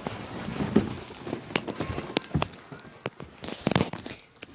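Handling noise from a handheld phone being jostled about: irregular knocks, taps and rustling.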